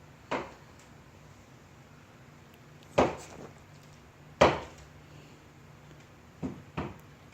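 A handful of sharp knocks or clatters, like hard objects set down or bumped indoors: one just after the start, two loud ones about three and four and a half seconds in, and a quick pair near the end. A faint steady hum lies underneath.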